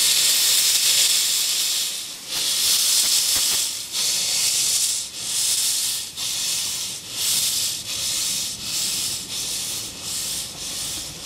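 Miniature 381 mm-gauge steam locomotive starting away, steam chuffing and hissing from its cylinders with the drain cocks open. After one long first blast the chuffs come closer together as it gathers speed.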